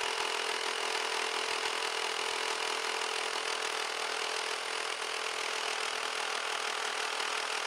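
Hilti SR 4-22 cordless 22-volt single-handed reciprocating saw with a 9-inch blade, cutting steadily through a wooden beam: an even, unbroken mechanical buzz of the blade stroking through the wood.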